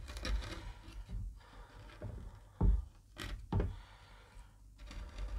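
Mora carving knife paring the rough fibres from the rim of a drilled hole in a pine board: short scraping cuts with a few sharp clicks and knocks, the loudest three coming about halfway through.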